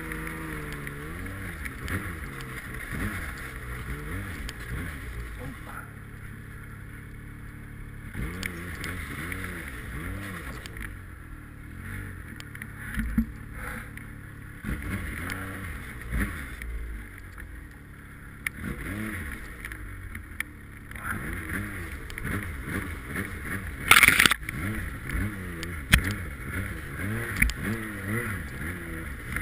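Snowmobile engine revving up and down as the sled ploughs through deep powder, easing off the throttle several times. A sharp loud knock late on.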